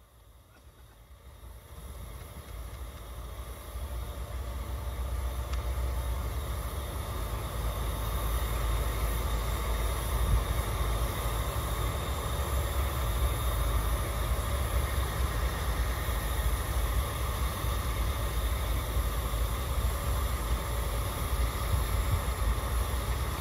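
Diesel locomotive engine, a JNR DE10, running up from idle as it slowly pulls away, a low rumble that swells over the first few seconds and then holds steady.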